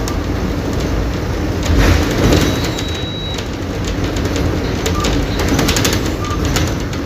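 Mercedes-Benz OF-1722M bus's diesel engine running as the bus drives, with steady rattling and clicking from the bodywork. A short high whine sounds briefly near the middle.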